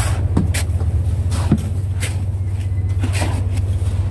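Fishing boat's engine running with a steady low drone, with a few short scrapes and knocks of shovels digging into crushed ice.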